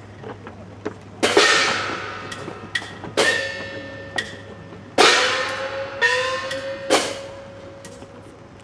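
Festival percussion for the Goshuinsen ship float: five loud ringing strikes, irregularly spaced one to two seconds apart, each ringing on and fading with a tone that rises slightly in pitch, with lighter clicks and knocks between them.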